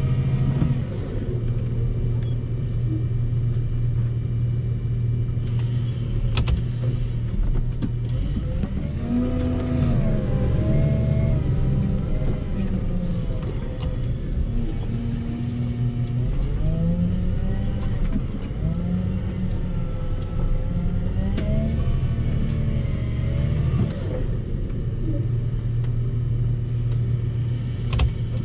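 Volvo L60H wheel loader's diesel engine running under load, heard from the cab, its pitch rising and falling several times through the middle as the loader works the boom and pushes snow. A few sharp knocks and rattles come through now and then.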